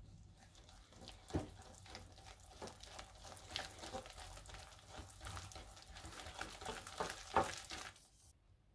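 Metal wire whisk stirring flour into a thick chocolate batter in a glass bowl: a constant run of scraping and ticking. There are two louder knocks, about a second in and near the end, and the stirring stops just before the end.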